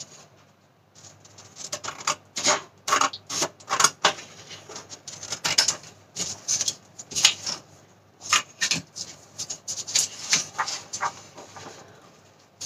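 Scissors cutting through sheets of white paper, with the paper rustling and crinkling as it is handled: a run of short, irregular, crisp snips and rustles.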